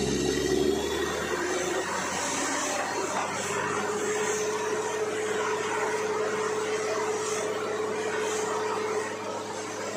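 Borewell drilling rig machinery running steadily: a continuous rushing noise over a low hum, with a steady whine that settles in about three and a half seconds in.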